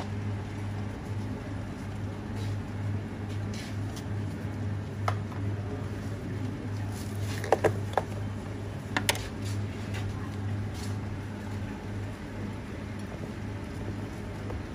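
Steady low hum of kitchen equipment, with a few short sharp clicks and clinks around the middle.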